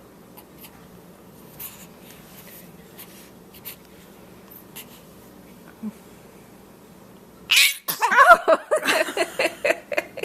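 Newborn baby's brief high-pitched wavering cries or fussing noises, starting suddenly with a sharp burst about three-quarters of the way in, after quiet room tone with a few faint rustles.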